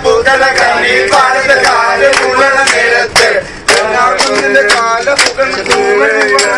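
A group of young men singing together loudly, with hand claps keeping a beat of about two a second.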